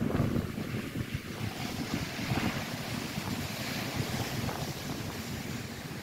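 Lake waves breaking and washing up on the shore, with strong wind rumbling on the microphone.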